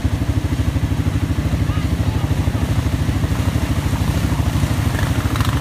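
ATV engine running steadily, an even low pulsing putter with no revving.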